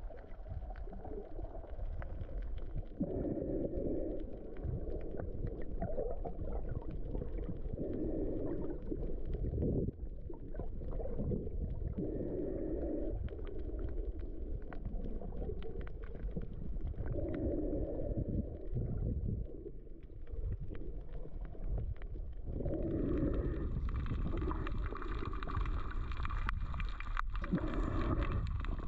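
Water moving against a submerged camera: a steady muffled low rumble with a swell about every four to five seconds. Near the end a higher, steady whine joins in.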